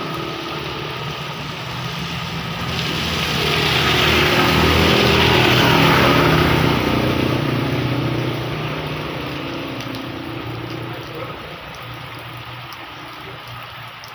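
A motor vehicle's engine passing in heavy rain. It grows louder over the first few seconds, is loudest about five or six seconds in, then fades away, with the hiss of rain beneath it throughout.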